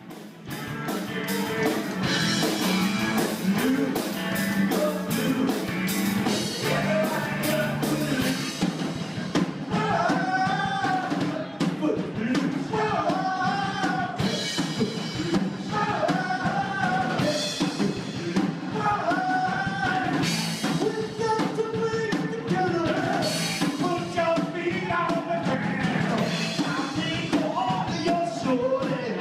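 Live rock band playing electric guitars, electric bass and drum kit, with a lead voice singing in phrases from about ten seconds in.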